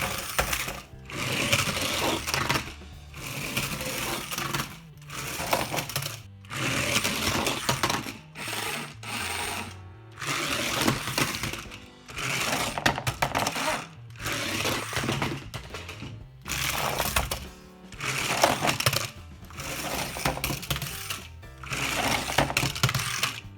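Battery-powered electric motor and drivetrain of a small toy RC monster truck whirring in repeated bursts of a second or two as the throttle is squeezed and released, over background music.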